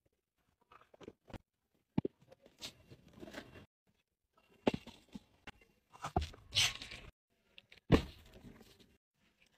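Cardboard snack boxes and a plastic jug being handled and set down into a wire shopping cart: a run of separate sharp knocks and thuds with rustling in between, the loudest about eight seconds in.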